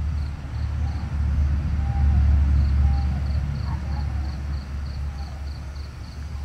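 Low rumble of a vehicle passing by, swelling to its loudest about two seconds in and then fading. A faint high ticking repeats about four times a second.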